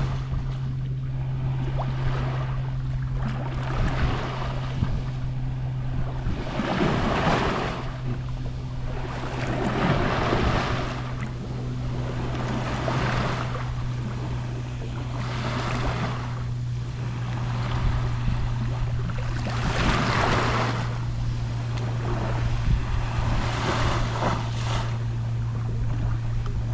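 Gentle Mediterranean Sea waves lapping on the shore, a wash of water coming in every few seconds, with larger ones about 7, 10 and 20 seconds in. A steady low hum runs underneath.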